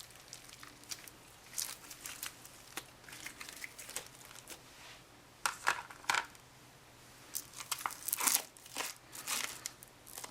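Old, dried-up crunchy slime being squeezed and pulled apart by hand, giving an irregular crackling and crinkling, with louder bursts about halfway through and again near the end.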